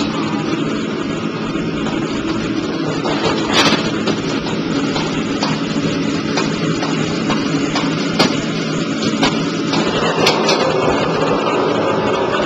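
Steady rushing noise of a commercial wok range's gas burner and extraction hood, with a few sharp metal clanks against the wok about a third of the way in and again later.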